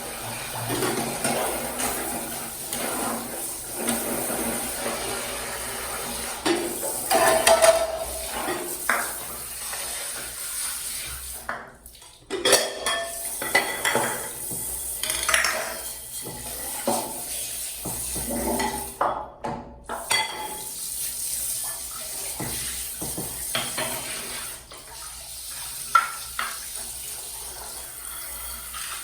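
Dishes and cutlery clattering and clinking in irregular knocks, with water running, as when washing up at a kitchen sink. The clatter breaks off briefly twice.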